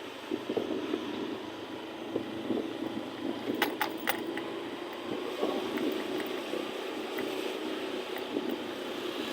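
Steady road and vehicle noise while travelling, with a faint steady hum and a few sharp clicks about halfway through.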